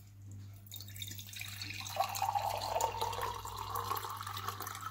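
Cold water poured in a stream into an empty glass tumbler, starting about a second in, its filling tone rising a little as the glass fills.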